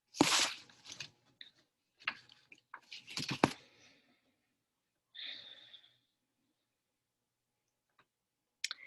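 Scattered faint sounds: a breath-like rush at the start, a few small clicks with one sharper click about three and a half seconds in, and a brief hiss about five seconds in, with dead silence between them.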